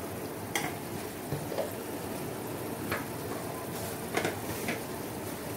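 Tomato and onion masala cooking in a pot, bubbling and sizzling steadily, with a few short sharp clicks scattered through.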